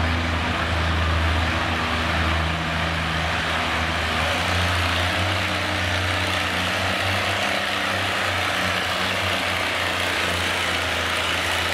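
Classic Oliver row-crop tractor's engine running steadily under full load as it drags a weight-transfer sled down the pulling track.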